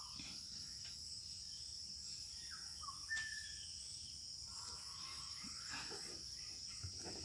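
Faint, steady high-pitched chirring of insects, with one brief chirp about three seconds in.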